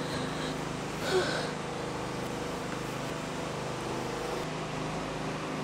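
A woman crying: one short sob with a sharp breath about a second in, over a steady low hum.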